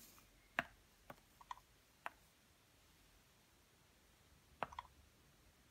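Stylus tapping on an Apple Newton MessagePad 100's touchscreen: faint, short clicks, a few in the first two seconds and a quick cluster of taps near the end.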